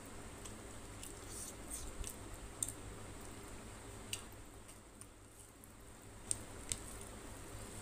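Eating curry and rice by hand: wet squishing of fingers working curry-soaked rice and tilapia, with scattered sharp wet clicks from mouth and fingers, two close together near the end. A faint low hum runs underneath.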